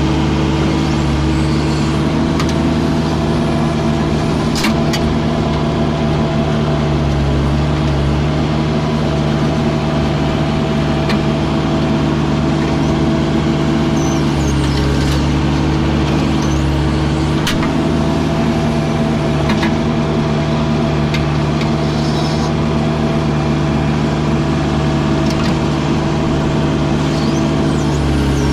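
Backhoe loader's diesel engine running steadily under work, its pitch dipping and recovering several times as the digging and loading put load on it, with a couple of short sharp clanks.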